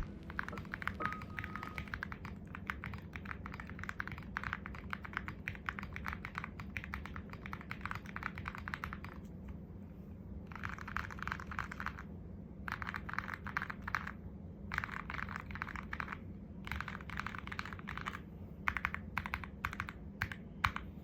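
Typing on an Alice-layout mechanical keyboard, foam-dampened, with lubed Cherry screw-in stabilizers: a fast, dense clatter of keystrokes. It runs unbroken for the first half, then comes in short runs split by brief pauses, with a few louder single clacks near the end.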